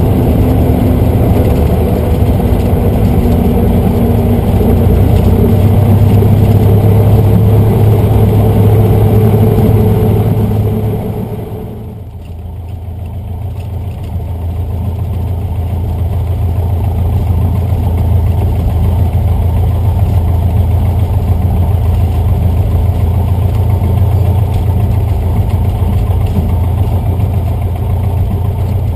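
Cessna 150's Continental O-200 four-cylinder air-cooled engine running with the propeller turning on the ground. The note is louder and higher for the first ten seconds, falls away sharply about eleven seconds in, then settles into a lower, steady running note.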